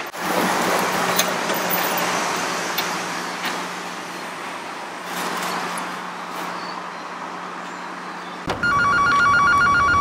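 Mobile phone ringtone, a rapid electronic trill that starts about eight and a half seconds in and is the loudest sound, over steady street traffic noise.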